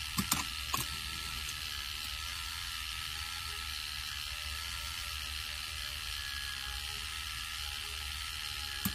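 K'nex ball machine running: the battery motor and plastic gears driving the chain lift make a steady whir. A few sharp plastic clicks come about a quarter second in and near one second in, and again near the end, as the ball passes over the top of the lift onto the track.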